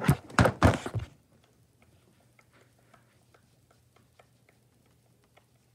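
Handling noise for about the first second: rustling and a few knocks as a plush toy is moved close to the microphone. Then faint, fairly regular ticking, about three ticks a second, over a low hum.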